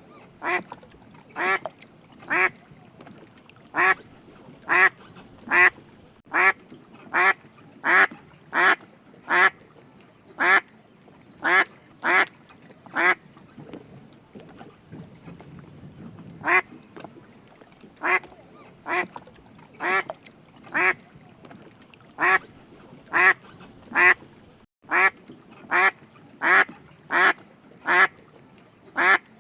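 Duck quacking over and over, short quacks about one a second, with a pause of a few seconds about halfway through.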